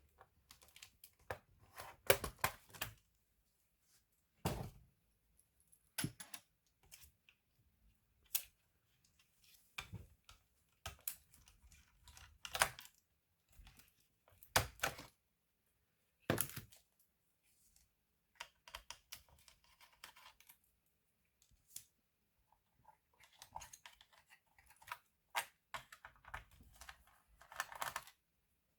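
Irregular clicks, taps and short scrapes of small plastic and metal parts being handled while a Lenovo B570e laptop is taken apart, with light scraping and rustling in the second half.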